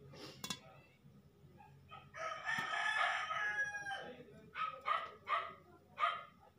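A rooster crowing once, a long call about two seconds in, followed by several short calls.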